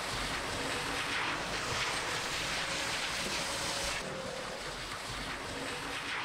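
Steady rushing outdoor ambience, like wind or distant flowing water, with a faint wavering hum; it drops slightly about four seconds in.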